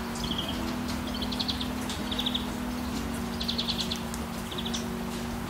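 Small birds calling: short, rapid high trills repeated about once a second, over a steady low hum.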